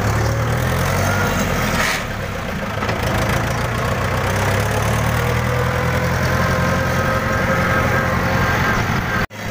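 Tractor's diesel engine running steadily, heard from on board the moving tractor. The sound drops out for an instant near the end.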